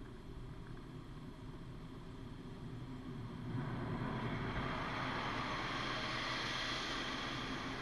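Automatic car wash machinery heard from inside the car, muffled by the camera's protective case: a steady low rumble, then about three and a half seconds in a louder, even rushing hiss sets in, like spray jets or dryer blowers reaching the car.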